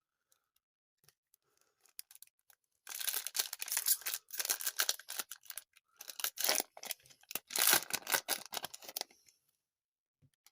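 A trading-card pack wrapper being torn open and crinkled. It comes in rapid crackling bursts from about three seconds in until about nine seconds in.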